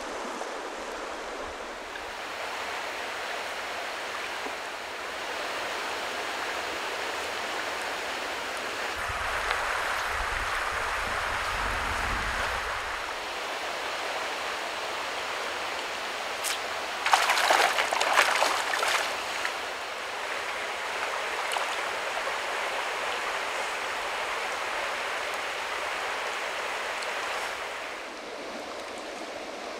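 Steady rush of a rocky mountain creek flowing over stones, fuller and deeper for a few seconds about a third of the way in. About halfway through comes a brief flurry of short, sharp sounds, the loudest moment.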